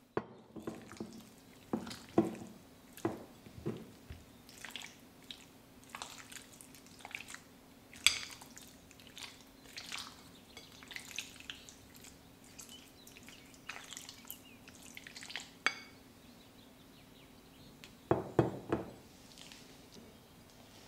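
White silicone spatula stirring marinated chicken pieces in a glass bowl: irregular wet squelches and light clicks of the spatula against the glass, over a faint steady hum. A quick cluster of louder knocks comes near the end.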